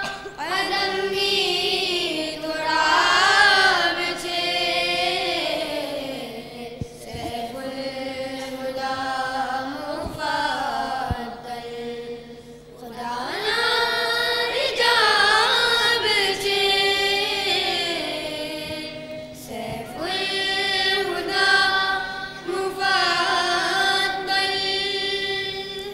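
A students' choir singing a Dawoodi Bohra madeh, a devotional praise song, in long drawn-out melodic phrases, with a short break about every six or seven seconds.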